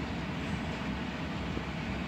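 Cars of a mixed freight train rolling past: a steady low rumble of steel wheels on the rails.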